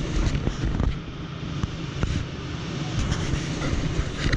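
Steady low machinery hum, with a few light clicks and knocks.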